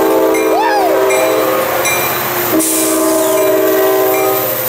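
Locomotive horn of a departing NCTD Coaster commuter train, led by locomotive 3002. It sounds two long blasts, each a steady chord of about two seconds, separated by a brief break a little past two seconds in.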